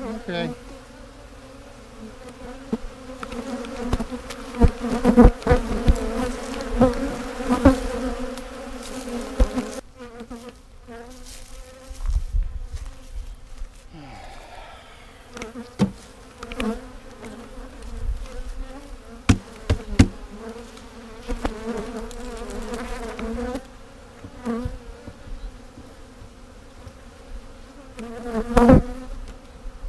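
Honeybees from a defensive colony buzzing around an open hive in a steady, dense hum, with occasional short knocks from hive handling.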